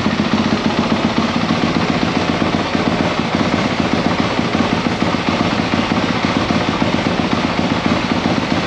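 Single-cylinder four-stroke engine of a Yamaha YZ250F dirt bike running steadily with a fast, even pulsing.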